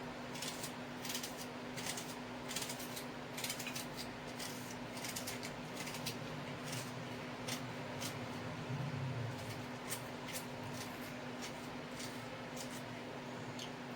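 Kitchen knife cutting onions on a cutting board: a run of short, sharp, irregular cuts, denser in the first half, over a steady faint hum.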